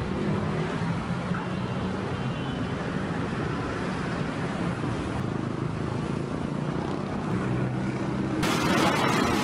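City street traffic: engines of minibuses, cars and motorcycles running and idling close by, a steady low hum over road noise. Near the end the sound changes abruptly to a louder, brighter noise.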